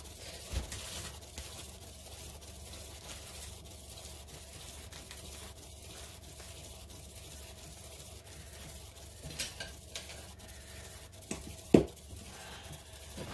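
Paint-pouring spinner turning a wet poured tile: a faint steady whir with a few sharp clicks, the loudest about two seconds before the end.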